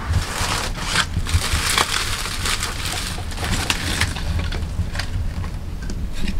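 Dry brush or sticks crunching and crackling, dense with small snaps for about three seconds, then fainter scattered clicks, over a steady low rumble.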